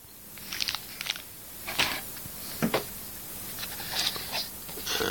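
Phone-box packaging being handled: scattered crackles and clicks of plastic and cardboard, with a sharper knock about two and a half seconds in.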